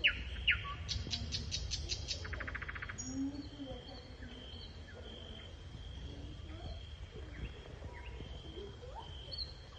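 Wild birds chirping and trilling outdoors, with short falling chirps and quick rattling trills that are busiest in the first three seconds, over a steady low rumble.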